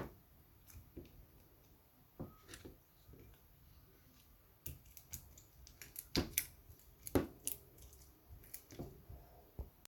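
Slime being squeezed and poked by hand, making irregular small sticky clicks and pops, most of them bunched together a little past the middle.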